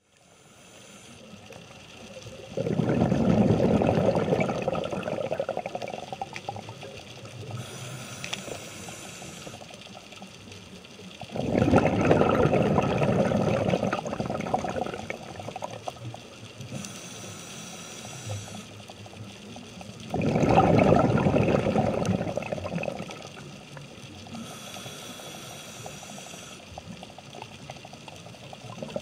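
Scuba diver breathing through a regulator, recorded underwater: three loud bubbly exhalations about nine seconds apart, each followed a few seconds later by a short hiss of air drawn in on the inhale.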